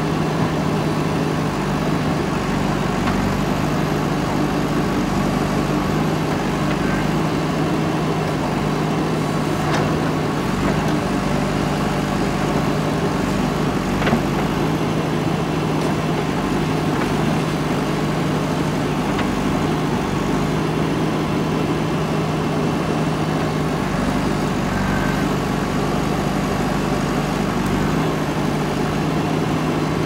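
JCB 3DX backhoe loader's diesel engine running steadily while the backhoe arm works, with a single sharp knock about halfway through.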